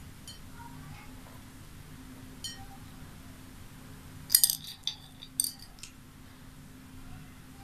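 Small pearl beads clinking against a plate as fingers pick through them: a few light clicks, then a quick cluster of clinks about four to six seconds in. A faint steady hum runs underneath.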